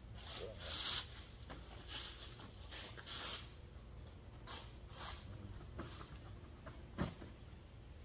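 Dry maple leaves and a paper lawn bag rustling in a series of short bursts as leaves are dumped and pushed into the bag, with a dull knock about seven seconds in.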